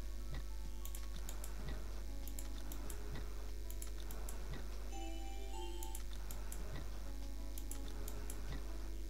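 Online video slot game sounds during automatic free bonus spins: short electronic tones and little jingles as the reels spin and land, with frequent sharp clicks in quick pairs. A steady low hum runs underneath.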